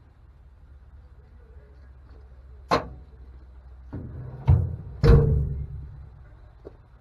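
Three sharp knocks, the last two louder and close together, each followed by a brief low rumble.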